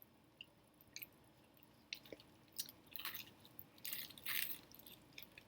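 A person chewing food close to the microphone: scattered small mouth clicks, then a denser run of louder chewing noises over the second half.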